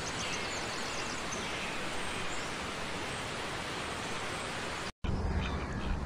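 Steady, even outdoor background noise with a few faint bird chirps near the start. After a cut about five seconds in, ducks begin quacking.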